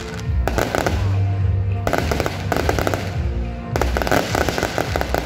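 Aerial fireworks bursting in rapid clusters of crackles and bangs, over music from a stage sound system.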